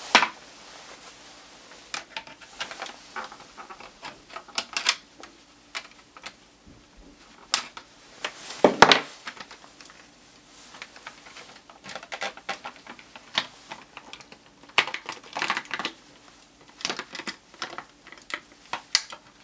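Hands working a scale model out of its packaging: scattered, irregular clicks, taps and crackles of the packaging being handled, with a louder cluster about nine seconds in.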